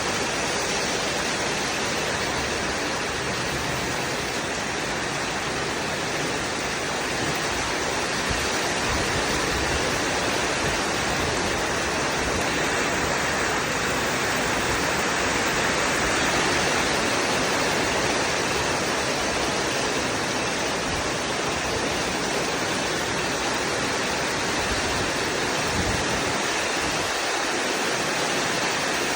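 Heavy rain pouring down in a steady, even hiss, with some low rumbling underneath.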